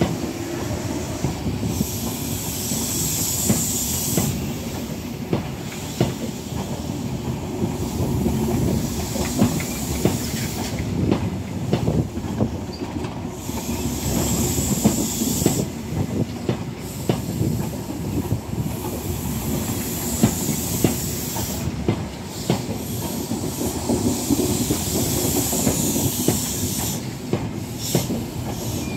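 Passenger train coaches rolling slowly over a level crossing. The wheels rumble and knock over the rail joints. A high hiss from the wheels swells and fades about every six seconds.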